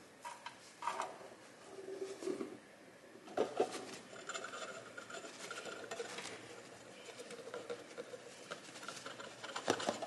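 Dry pancake mix poured from a cardboard box into a clear plastic storage canister: a few clicks and taps of the box and canister in the first seconds, then a soft steady hiss of powder streaming in.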